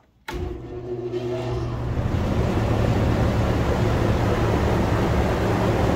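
Large belt-driven exhaust fan of a garage paint booth switched on. About a quarter second in, its hum starts, and the rush of moving air builds over about two seconds to a steady loud drone.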